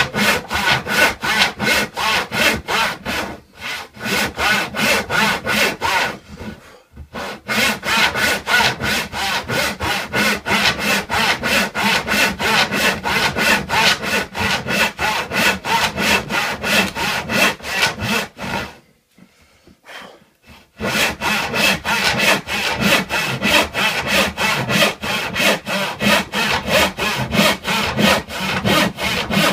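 Hand saw cutting through an old reclaimed wooden board in fast, even strokes, about three a second. It stops briefly twice early on and for about two seconds a little past the middle, then carries on.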